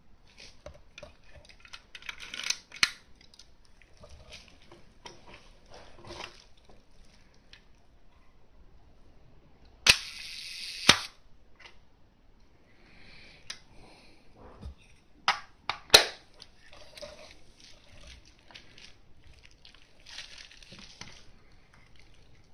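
Canon VI L rangefinder's focal-plane shutter released at a slow speed: a sharp click as it opens about ten seconds in, a steady whirr for about a second, then a click as it closes. Other sharp shutter and mechanism clicks come about two and a half seconds in and twice near sixteen seconds, amid handling of the metal body.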